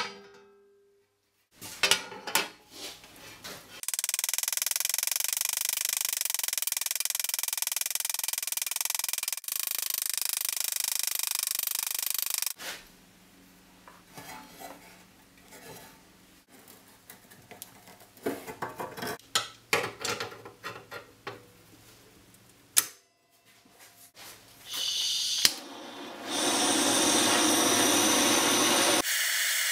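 Metalworking by hand on sheet steel. One hammer blow at the start, then a steady noise for several seconds, then irregular scraping and clicking as a steel strap is rubbed with an abrasive pad. Near the end a handheld gas torch hisses steadily.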